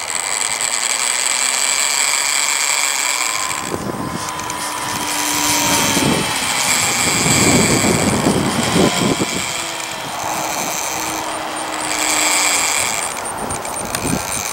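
Radio-controlled model airplane flying overhead, its motor a faint drone that slowly falls in pitch as it passes. A high-pitched whir comes and goes, and gusts of wind buffet the microphone in the middle.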